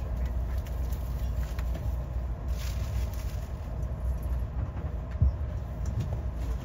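Amtrak passenger train running, heard from inside the passenger car: a steady low rumble with scattered short knocks, the sharpest about five seconds in.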